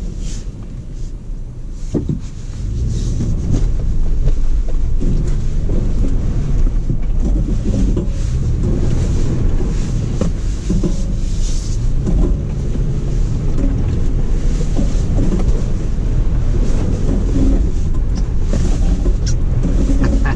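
Toyota truck driving along a rough, muddy farm track: a low, steady engine and tyre rumble with scattered knocks from the bumps. It gets louder about two seconds in.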